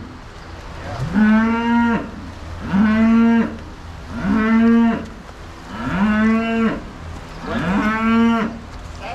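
Cattle mooing: five long moos, one about every one and a half seconds, each rising, holding a steady pitch and then dropping off.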